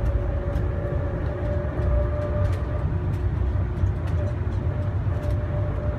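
Airport people-mover tram running along its elevated guideway, heard from inside the car: a steady low rumble with a faint whine that fades and returns, and a few light clicks and rattles.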